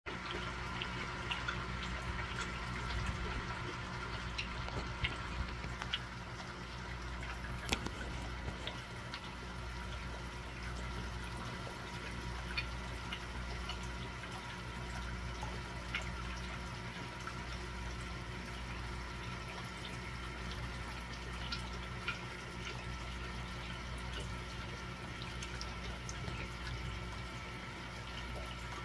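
Aquarium water circulating: a steady trickle of water over a constant low hum, with scattered light clicks.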